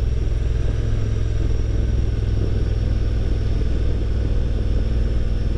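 Honda Transalp motorcycle engine running at steady revs, a low, even drone.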